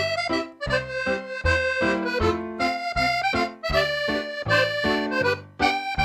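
Excelsior piano accordion played solo in a lively polka: a right-hand melody over a regularly pulsing bass-and-chord accompaniment.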